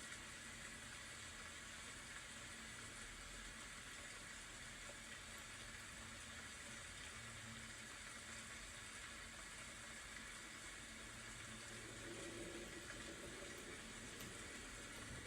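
Faint, steady rain hiss with a low hum underneath.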